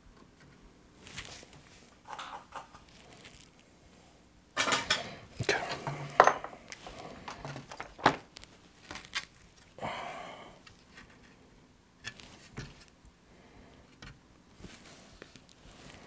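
A PS4 circuit board being lifted and handled on a silicone work mat: a cluster of clinks, clicks and rustles from about four to nine seconds in, then a few lighter taps.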